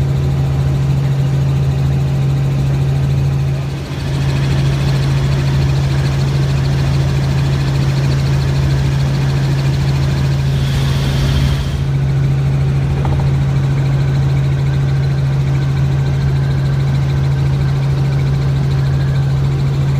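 Robinson R44 helicopter in flight, heard from inside the cabin: a loud, steady drone of its piston engine and rotors with one strong constant low hum. A short burst of hiss comes about ten seconds in.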